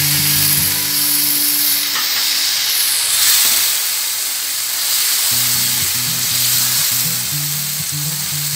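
Masala sizzling in hot oil in a frying pan as chopped tomato is tipped in and stirred through with a spatula: a steady frying hiss.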